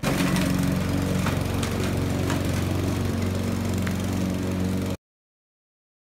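Honda walk-behind lawn mower's four-stroke engine running steadily while mowing dry grass, with a few sharp ticks over it. The sound cuts off suddenly near the end.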